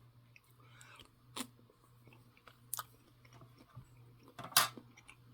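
A person chewing a bite of canned beef, with soft mouth clicks and smacks, the loudest a little before the end, over a faint steady low hum.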